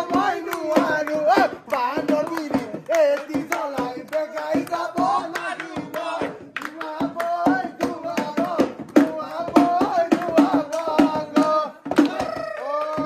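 Group of men singing a Bihu song, with hand claps keeping the rhythm; a long note is held near the end.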